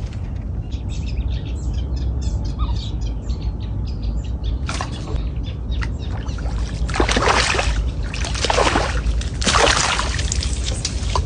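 Birds chirping in a quick series of short high notes. Four louder noisy bursts come in the second half, over a steady low rumble.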